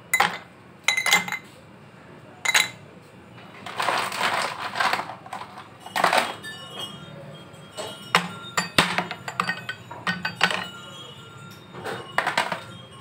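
Ice cubes dropped into drinking glasses, clinking sharply against the glass in a series of separate clinks and short clatters.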